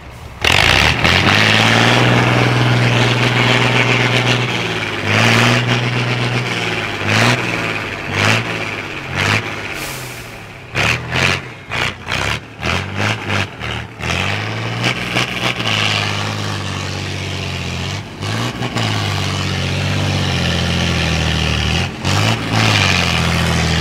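IFA L60 4x4 trial truck's diesel engine working under load as the truck climbs out of a rocky mud pit. The revs repeatedly rise and fall, with a quick run of short throttle blips about halfway through, then are held high and steady toward the end.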